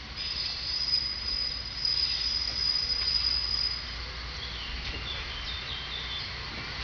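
Regionova (ČD class 814) diesel railcar approaching, its wheels squealing on the rail with a steady high-pitched tone for about four seconds, followed by a few short squeals, over a low rumble.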